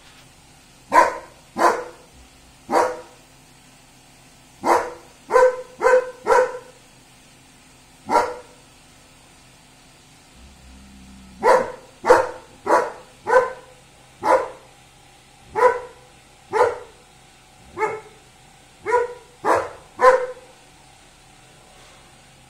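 German Shepherd barking: about twenty short, loud single barks, spaced half a second to a second apart, in two runs broken by a pause of about three seconds midway.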